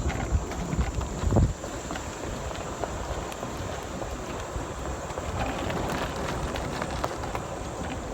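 Wind rumbling on the microphone, with a stronger gust about a second and a half in and a few faint clicks.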